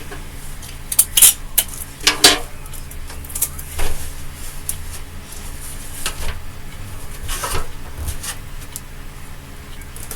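Clinking and clattering of small hard objects being handled: irregular sharp clicks and scrapes, the loudest about one and two seconds in, over a steady low hum.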